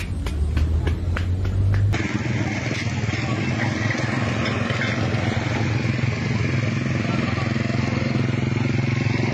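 Motorcycle engine running at a steady, even pitch. For the first two seconds a different sound is heard instead: a low hum with regular clicks about three a second, which cuts off abruptly.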